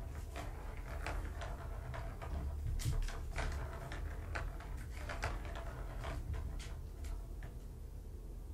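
Scattered light clicks and taps at irregular intervals over a steady low hum, the sharpest about three seconds in.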